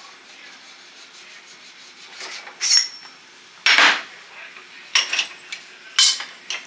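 Steel parts of an SB pulling tool being handled during disassembly: faint rubbing, then four metal clinks and clanks from about two and a half seconds in, the first ringing briefly and the second the loudest and longest, like a scrape.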